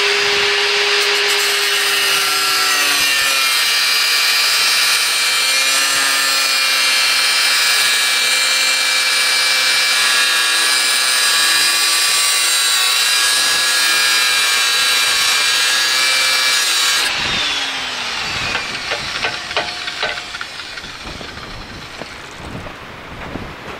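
Electric hand drill boring through a steel plate, guided by a clamped bearing's mounting hole: a steady high whine whose pitch drops slightly as the bit bites, running until about seventeen seconds in, then winding down. A few knocks and scrapes of metal being handled follow.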